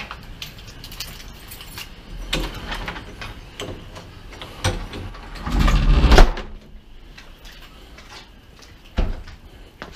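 A bunch of keys jangling and clicking against a door lock, with a heavier rattle and knock about six seconds in and a single knock near the end.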